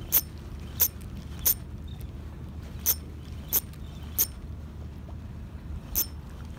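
Sharp, short metallic clicks from a spinning rod and reel as a soft lure is worked and retrieved, about seven in all, irregularly spaced with a longer gap near the end, over a steady low rumble of wind and water.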